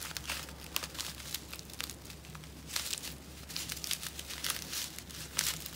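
Small clear plastic zip bag of diamond painting drills crinkling in the fingers as it is handled, in irregular crackles.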